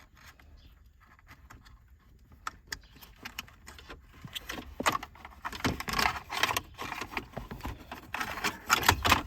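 Hand-handling noise of a car's AC control panel being fitted back into the dash: scattered plastic clicks and rattling. The noise starts sparse and grows busier about halfway through.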